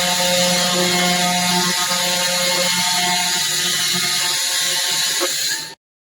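Handheld fiber laser cleaning and welding machine working on metal: a steady crackling hiss over a low electrical hum, cut off abruptly near the end.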